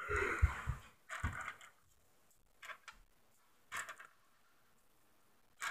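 Skittles clicking and rattling on a tabletop as a hand picks candies out of a loose pile: a longer bout of rustling at first, then a few brief clicks with quiet gaps between.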